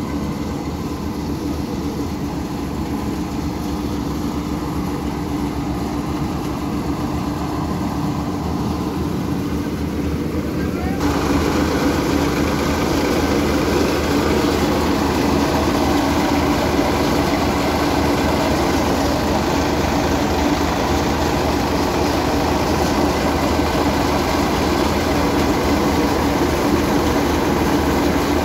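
A tractor's diesel engine running steadily. About a third of the way in, the sound switches abruptly to a louder, fuller machine din with a strong steady drone: a threshing machine running, driven off the power take-off of a Sonalika tractor as sheaves are fed in.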